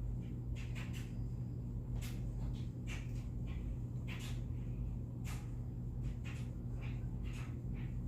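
Close-up eating sounds from a breakfast sandwich being chewed: irregular short wet clicks and smacks from the mouth, over a steady low hum.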